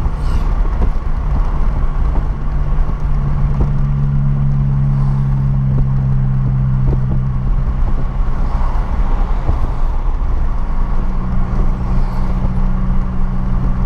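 Renault Clio 1.6 16V (K4M) four-cylinder engine droning steadily while cruising, over low road rumble. Its note shifts slightly in pitch about three and a half seconds in and again near eleven seconds.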